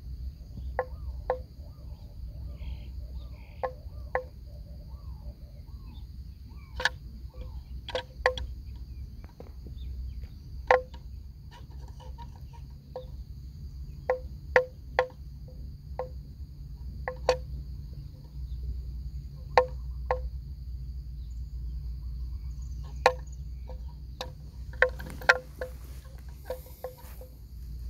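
Hollow wooden bells on grazing water buffalo clonking irregularly, about once every second or two, each knock ringing at the same pitch. Behind them a steady high drone of insects.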